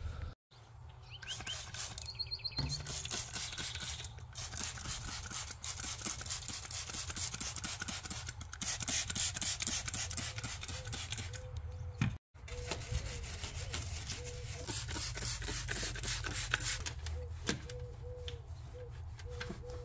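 Hand scrubbing and wiping of grimy engine-bay parts with a microfiber cloth wet with spray degreaser: a steady, rasping rub, broken twice by brief dropouts.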